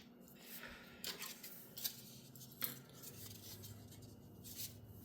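Faint, scattered clicks and light handling noises of small parts being worked by hand during a graphics card fan replacement.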